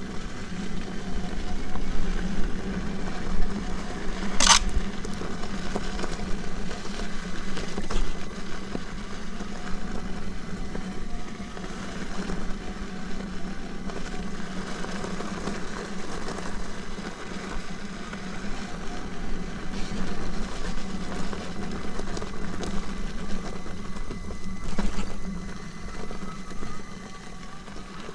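Commander electric unicycle being ridden on a dirt trail: a faint hub-motor whine that wavers with speed over the steady rumble of the tyre on dirt and gravel. One sharp click about four and a half seconds in.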